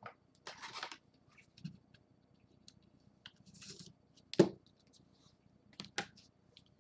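Hands handling paper and cards on a table: soft rustles and light clicks, with a sharper click about four and a half seconds in and another about six seconds in.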